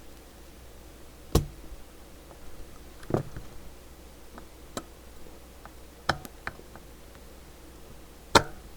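About six sharp clicks and knocks of small hand tools working on a CB radio circuit board during desoldering, irregularly spaced, the loudest two near the start and at the end.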